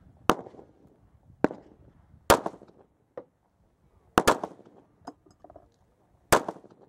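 SIG P239 9mm pistol firing single shots: about six sharp reports at uneven intervals, two of them in quick succession about four seconds in.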